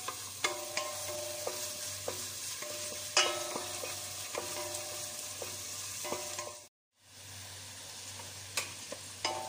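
Wooden spoon stirring chicken and cracked wheat in simmering stock in a stainless steel pot: the contents hiss and bubble steadily, and the spoon repeatedly knocks and scrapes against the pot, which rings briefly after each knock. The sound cuts out for a moment about seven seconds in.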